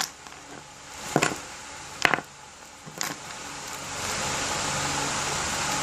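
Three short sharp handling sounds about a second apart as a package and its contents are handled, then a steady background hiss that comes up about four seconds in.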